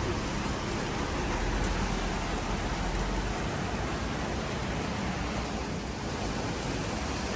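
Strong storm wind with rain, a steady rushing noise, with gusts buffeting the microphone as a low rumble from about one to three seconds in.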